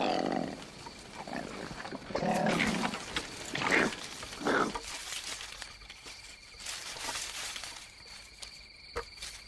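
Two male koalas fighting: harsh snarls and squeals in several loud bursts over the first five seconds, then only faint scuffling with insects calling steadily.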